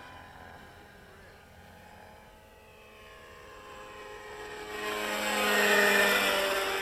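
Radio-controlled model helicopter's nitro glow engine running on 30% nitro fuel, tuned slightly rich, in flight with a steady tone. It grows louder as it comes close, peaking about six seconds in, then fades a little.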